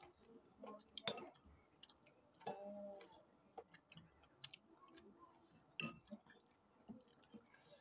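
Metal spoons and a fork clicking and clinking against ceramic bowls while eating, in scattered light taps, the loudest about a second in and near six seconds.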